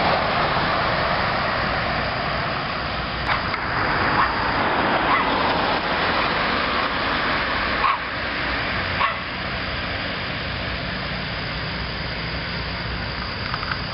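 A dog barking several short times over a steady rushing noise.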